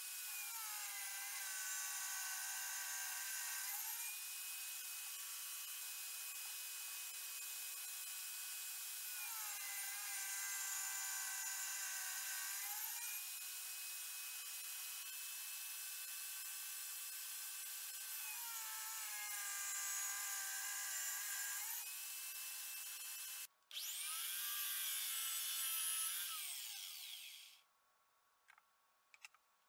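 Circular saw mounted under a saw table running steadily, its motor pitch sagging three times, each for about three seconds, as the blade rips lengthwise through a pine board. Near the end a saw runs briefly once more and winds down to a stop, leaving near silence with a few faint clicks.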